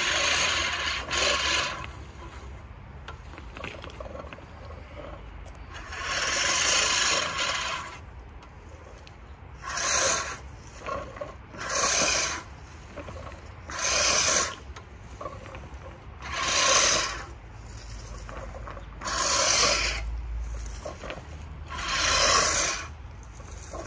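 Earthwise 18-inch manual reel mower pushed through tall grass, its spinning reel blades cutting in repeated bursts, one with each push, about every two to three seconds.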